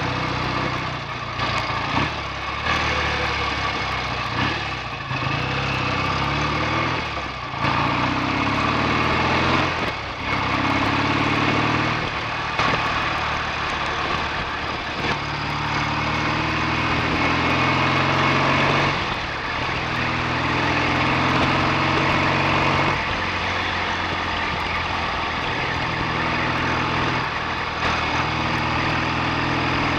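BSA A65 650 cc parallel-twin motorcycle engine running on the road, its note climbing and then dropping back several times, over a steady rush of wind.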